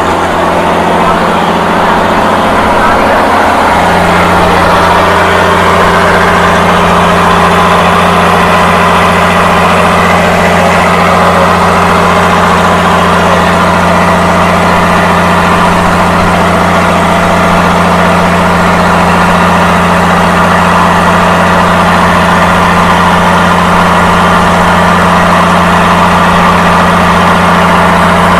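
Mitsubishi 6D16 inline-six diesel boat engine running loud and steady. Its pitch shifts once about four seconds in, then holds.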